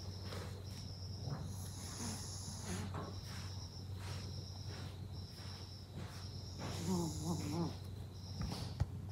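Crickets chirping in regular high-pitched pulses, under a steady low hum. About seven seconds in comes a short, wavering whine.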